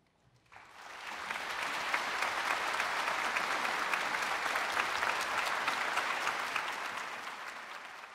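Audience applauding: the clapping starts about half a second in, builds quickly into full applause, and fades out near the end.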